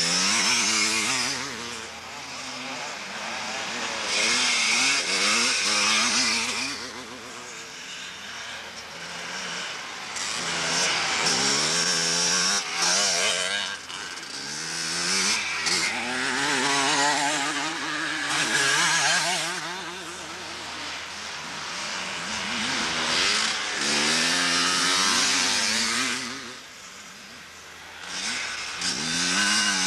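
ČZ two-stroke motocross motorcycles racing past one after another, their engines revving up and falling back as they work through the gears. The sound swells and fades about six times as bikes come and go.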